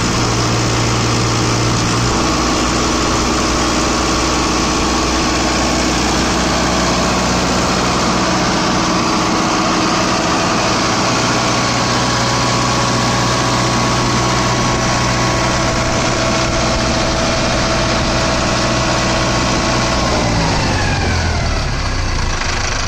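Mahindra Novo 655 DI tractor's 3.5-litre in-line four-cylinder diesel engine running steadily. Near the end its pitch falls as the revs come down.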